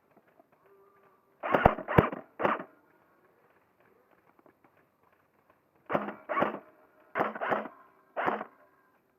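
Custom VFC Avalon M4 airsoft electric gun with a high-torque motor firing single shots. There are three quick shots about a second and a half in, then five more spread over the second half, each a sharp crack with a brief mechanical whir.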